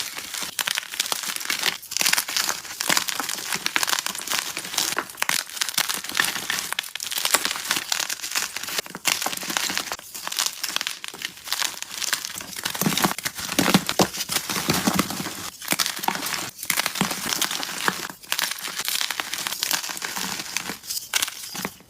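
Soft gym chalk being crushed and crumbled, a continuous fine crunching and crackling broken by brief pauses.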